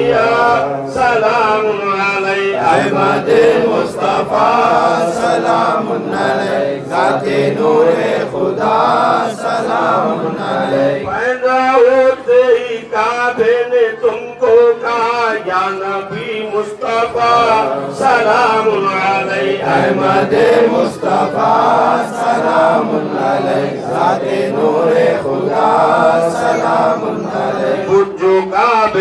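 Men's voices chanting a devotional Urdu salam, a melodic salutation to the Prophet Muhammad, in a continuous rising and falling recitation.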